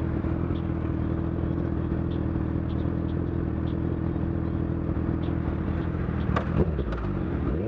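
Sport-bike engines, including a Honda CBR1000RR's inline-four, idling steadily at close range. There are a few clicks and a brief change in engine note near the end.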